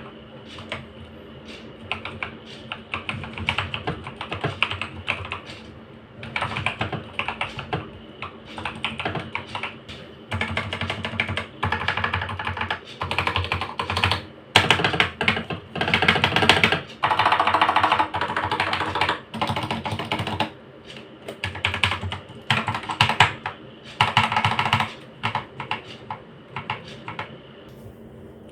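Mechanical keyboard with freshly lubed Outemu blue clicky switches being typed on quickly, in bursts of rapid keystrokes a few seconds long with short pauses between them. The bursts are loudest and densest around the middle.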